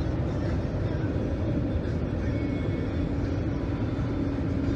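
Cabin noise of a 2013 Ford F-150 with the 3.5 L EcoBoost V6 cruising at highway speed: steady engine and road rumble, with a steady hum coming in about halfway through. At this steady throttle the engine runs smoothly without misfiring; the miss on cylinder 5 shows only under acceleration.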